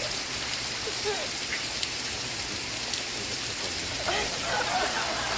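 Steady rain falling in a dense, even hiss, with faint television game-show voices underneath, a little stronger near the end.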